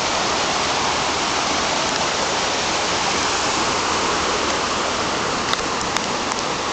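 Floodwater rushing loudly and steadily through a normally dry creek bed after a flash flood. A few short sharp clicks come near the end.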